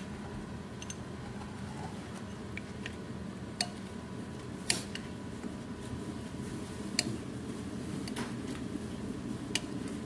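A metal fork knocking against the bowl about five times while stirring sweet potato slices through a thick flour batter, over a steady low hum.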